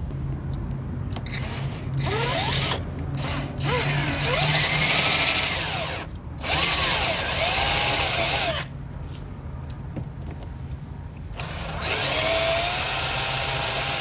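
Cordless drill boring a hole through a plastic aero side skirt with a twist bit, run in three spells with pauses between, the longest pause about halfway through. The motor whine dips and rises in pitch as the bit bites into the material.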